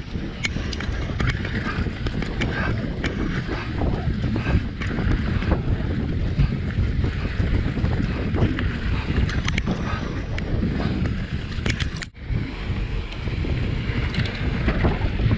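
Mountain bike ridden fast down a dirt trail: steady wind rush buffeting the camera microphone over tyre noise, with scattered clicks and rattles from the bike. The sound drops out briefly about twelve seconds in.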